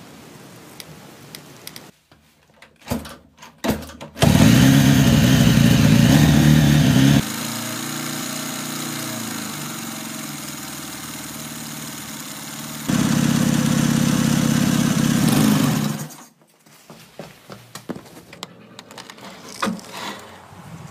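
Ural sidecar motorcycle's flat-twin engine running: loud for about three seconds, quieter and steady for about six, then loud again until it stops suddenly about sixteen seconds in. A few knocks come before it and scattered clicks after.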